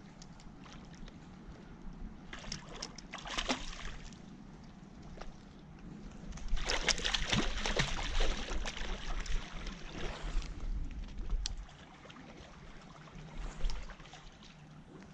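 A hooked salmon thrashing and splashing in shallow river water as it is scooped into a landing net. There is a short bout of splashing a few seconds in, then a longer, louder one in the middle.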